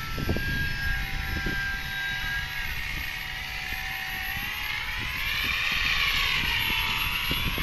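Two radio-controlled aerobatic profile planes flying together, a gas engine's buzz and an electric motor's whine, their pitches gliding up and down with the throttle. The sound swells louder about five seconds in as one motor's pitch rises and falls.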